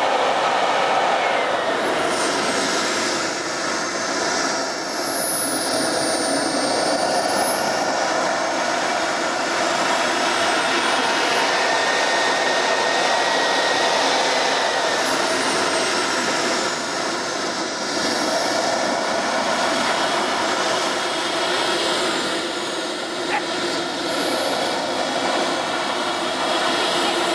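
Radio-controlled model F-16 jet's engine running steadily, with a high whine that rises and falls over several seconds as the throttle changes while it taxis.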